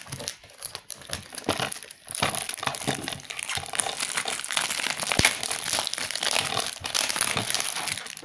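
Clear plastic shrink-wrap being torn and peeled off a new DVD case, crinkling continuously from about two seconds in, with scattered handling clicks before that.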